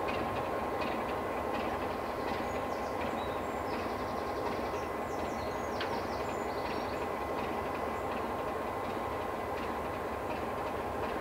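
Class 33 diesel-electric locomotive approaching, its Sulzer eight-cylinder engine running steadily with a thin steady whine. Light sharp clicks come and go over the top.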